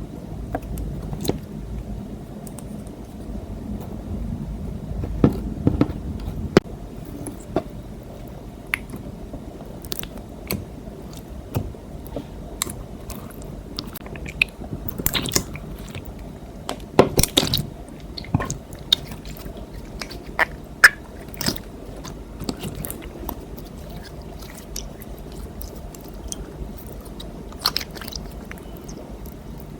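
Clear slime being kneaded and squished by hand, giving irregular sticky clicks and pops over a low background.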